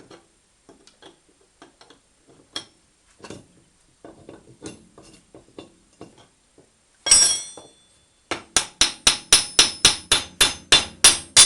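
Light metallic clicks of a wrench turning a ball-joint puller bolt, then one loud ringing metallic bang about seven seconds in. Then a quick run of hammer blows on steel, about four a second, as a tight VAZ-2110 front ball joint is worked free.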